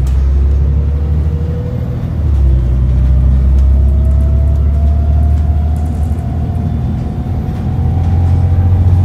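Alexander ALX400 double-decker bus's diesel engine and drivetrain heard from inside the lower deck: a heavy low rumble with a whine that rises steadily as the bus accelerates. About two seconds in, the whine and the rumble drop back briefly, as at a gear change, and then climb again.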